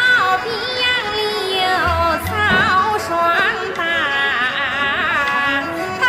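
Music: a high, ornamented melody line with strong vibrato, over occasional low bass notes.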